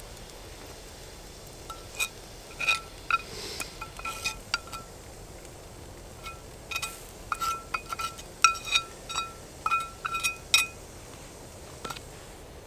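Small cast-iron skillet giving a quick run of sharp metallic clinks and knocks, each with a short ring, as fried onions are knocked out of it. The clinks come in two bursts, then a last couple near the end.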